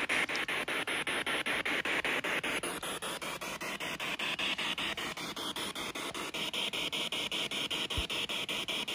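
Steady static hiss, chopped by brief regular dropouts about five times a second, with a single soft low thump near the end.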